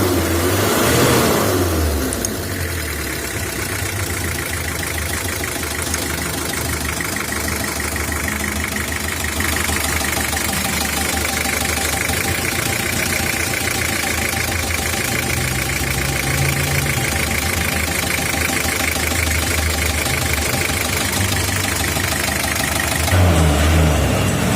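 1985 Toyota Hiace's diesel engine turning over and running just after its rotary injection pump was rebuilt with a new feed pump and drive-shaft bushing. It is a steady, fast pulsing that gets louder about ten seconds in. The sound changes in the first two seconds and again near the end.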